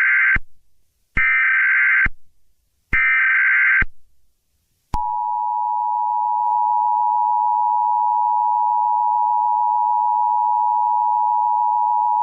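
Emergency Alert System SAME header: three short harsh data bursts about a second long, a second apart, the first already under way, followed about five seconds in by the steady two-tone EAS attention signal, which holds to the end.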